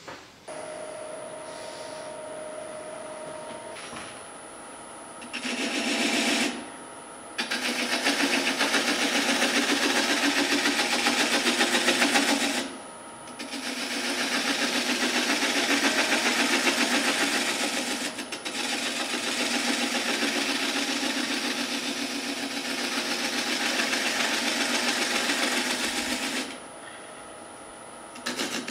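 Wood lathe running with a steady hum, then a hand-held turning tool cutting into the spinning charred oak in several long passes: a loud, harsh scraping hiss that starts about five seconds in and breaks off briefly about seven seconds in, about thirteen seconds in and again near the end.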